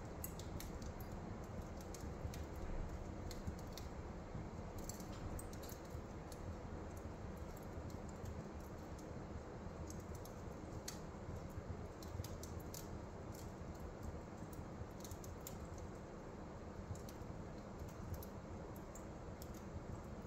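A wood fire in a fireplace grate crackling, with faint irregular ticks and small pops over a low steady hiss.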